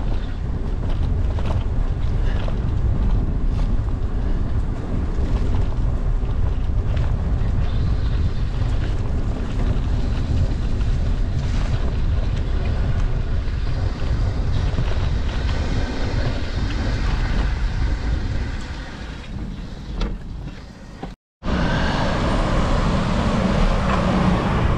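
Wind buffeting the microphone of a bike-mounted camera while cycling, a steady low rumble. Near the end it fades, cuts out for a moment, and comes back brighter and hissier.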